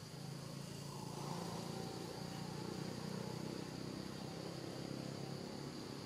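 Faint steady insect drone, with a low hum underneath that grows louder from about one second in until near the end.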